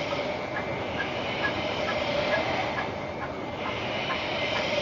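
Factory machinery running with a steady hum and hiss, and a light, regular clicking about twice a second.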